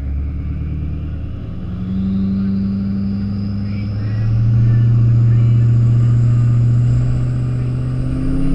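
Diesel pickup truck engine running and building revs. A turbocharger whistle climbs steadily in pitch, and about four seconds in the engine note steps up and gets louder.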